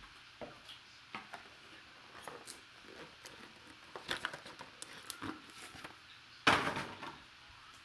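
Cardboard card box and packaging being handled and opened, with scattered small clicks and rustles and one louder rustling scrape about six and a half seconds in.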